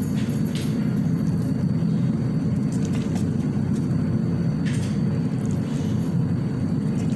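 A steady low rumble with a few light scrapes of a slotted spatula against a steel pan as cooked pasta is stirred, one near the start and one about five seconds in.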